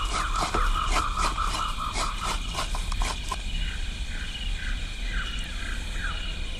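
Fresh coconut grated by hand: the half-shell scraped over a grater in quick rhythmic strokes, about three a second, stopping about three seconds in. Birds chirp after that in short falling calls.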